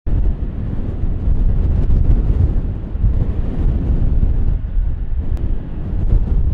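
Low rumble of a Kawasaki C-1 transport jet's two Pratt & Whitney JT8D turbofans as it comes in on final approach, gear down, mixed with wind buffeting the microphone.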